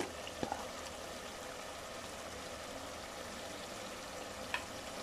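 Chicken with onion and tomato frying in ghee in a metal pot, a steady sizzle, with a light click about half a second in and another near the end.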